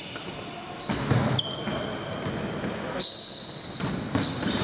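Basketball game on an indoor court: the ball bouncing, with several high squeaks from shoes on the floor and players' voices in a reverberant hall.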